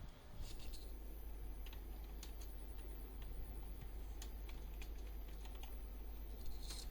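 Typing on a computer keyboard: irregular, fairly quiet key clicks, with a steady low hum underneath.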